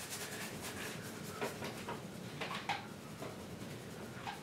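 Loaded paintbrush working paint onto a stretched canvas: a string of short brushing and dabbing strokes at an uneven pace.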